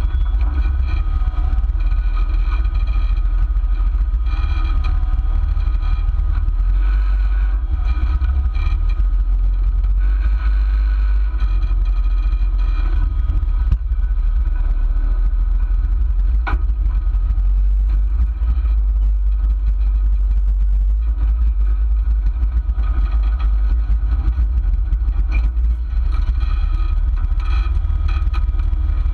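Off-road 4x4's engine running at low revs as the rig crawls a rough trail, heard from a camera mounted on its hood: a steady deep rumble with no change in pace.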